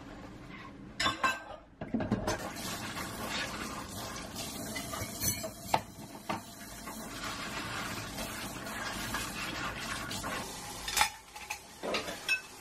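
Dishes being washed by hand at a kitchen sink: running tap water with a bowl and utensils clinking sharply against each other and the sink a few times.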